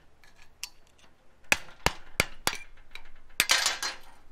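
Hammer striking a chisel to drive a seized rubber bushing out of a rusty steel suspension arm's bushing eye: four sharp metal strikes about a third of a second apart, then a longer clattering burst near the end as the bushing breaks free.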